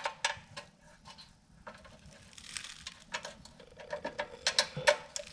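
Irregular light clicks and taps of small hardware being handled while a kill switch is fitted to a mini bike handlebar.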